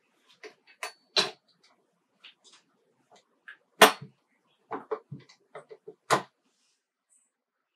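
A dough hook being pushed onto and twisted into place on a KitchenAid stand mixer's drive shaft, making sharp clicks and knocks. Three louder clicks come a couple of seconds apart, with a quick run of smaller ones before the last.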